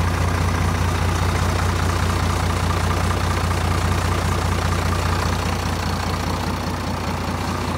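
Iseki 8020 tractor's diesel engine idling steadily with an even low hum.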